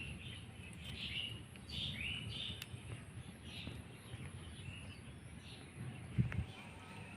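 A bird chirping in short calls repeated about once a second, growing fainter toward the end, over a low rumble; a dull thump about six seconds in.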